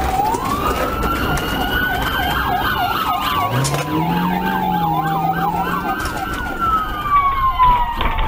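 Police car sirens: a slow wail rising and falling, with a fast warbling yelp cutting in twice and more than one siren sounding at once. An engine note rises and then holds about halfway through, over steady road noise.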